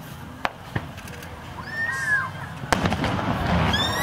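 Aerial firework shells going off: a few sharp single bangs, then a louder stretch of booms and crackle in the last second or so as a shell bursts, with brief exclamations from onlookers.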